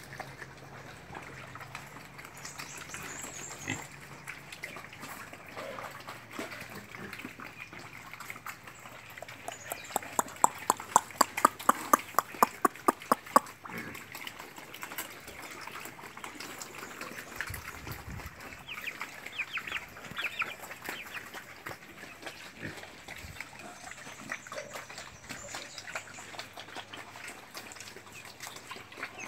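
Pigs grunting and squealing in their pens, with a run of rapid sharp knocks, about four a second, for a few seconds in the middle.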